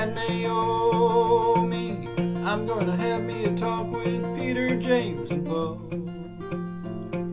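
Acoustic flattop guitar picked fingerstyle: steady alternating bass notes under a picked melody line, an instrumental break in an old-time gospel tune.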